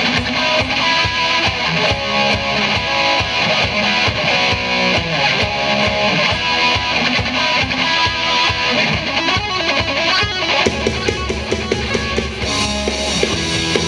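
Outro music: loud rock music with electric guitar and a steady drum beat.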